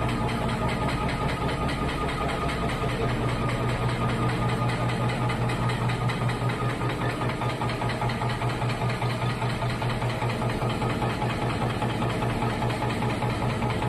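CNC machine running steadily, a low hum with a higher whine above it and a fast fluttering pulse.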